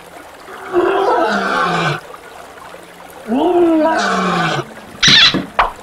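Lion roar, twice, each call about a second long, used as the lion's sound. A short sharp burst comes near the end.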